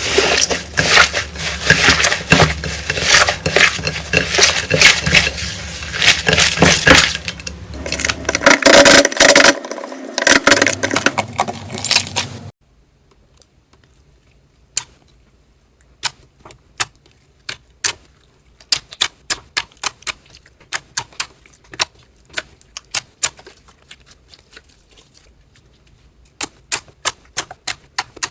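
Slime handled up close: a dense, loud crunchy crackling, then after a cut about twelve seconds in, separate sharp clicks and pops, one to a few a second.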